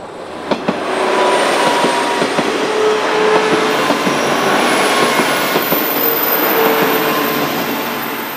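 KiHa 40-series diesel railcar train passing close by, a loud steady rumble of wheels on rail and engine with sharp clicks over the rail joints. It swells up in about the first second and fades near the end.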